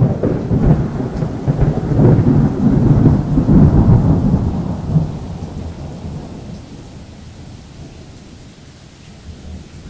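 A monsoon thunderclap breaks suddenly and rolls on in a long, deep rumble for about five seconds. It dies away into a steady hiss of rain.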